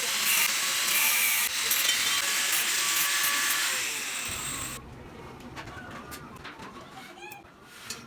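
Welding arc on stainless steel, hissing and crackling steadily, cutting off suddenly about five seconds in. After it stops, a few bird chirps are heard over a low hum.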